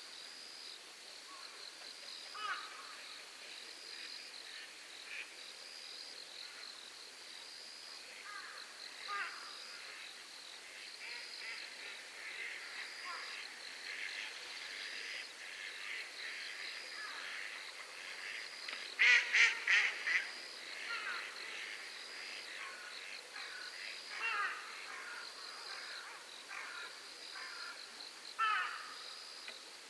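Night lakeside ambience: an insect chirping in a steady pulse about once a second, under scattered animal calls. About two-thirds of the way in comes a loud burst of screeching calls, four or five in quick succession.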